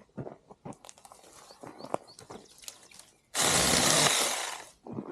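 Footsteps crunching twigs and leaves while walking through brush, then a loud rush of noise about three seconds in that lasts about a second and a half and fades out.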